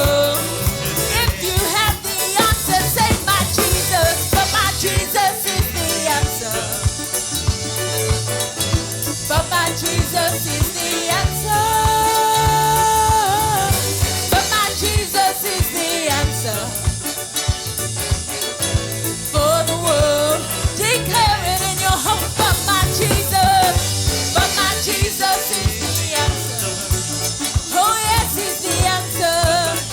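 A live gospel worship band plays an upbeat song, with drum kit and bass keeping a steady groove under a wavering melody line. A chord is held for a couple of seconds near the middle.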